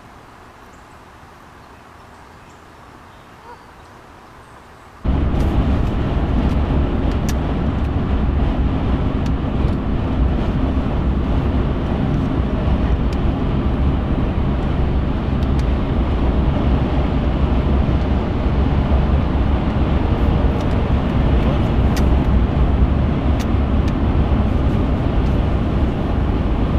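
A faint, quiet background, then about five seconds in an abrupt switch to a loud, steady rumble of road and engine noise, as heard inside a moving car.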